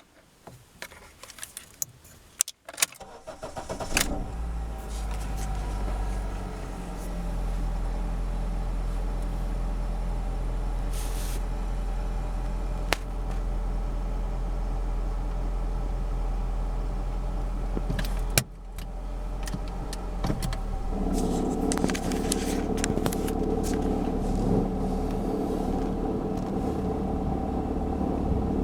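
Keys jangling and clicking, then the 2006 Honda Civic's R18A1 1.8-litre four-cylinder engine starting from cold about four seconds in and running steadily, with the rattle that comes on a cold start. A sharp click about 18 seconds in, after which the sound dips and then runs louder from about 21 seconds in.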